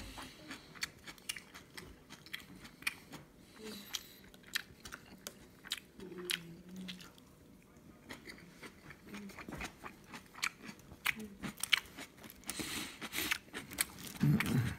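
Close-up chewing of a soft rice burger, with many small wet mouth clicks. A louder rustle comes near the end.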